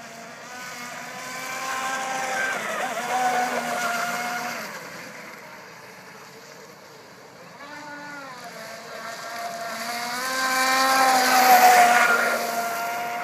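Atomik RC speedboat's motor whining at speed as it runs across the water, growing louder twice as the boat comes near. The pitch dips briefly and climbs again about eight seconds in.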